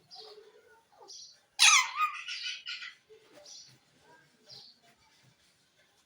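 Parrot giving one loud, harsh squawk about a second and a half in, lasting just over a second, with softer short chirps before and after it.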